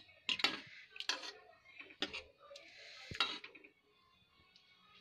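Metal spoon stirring a thick potato-and-paneer curry in a kadhai: clinks and scrapes against the pan about once a second, with the wet sound of the gravy being moved between them.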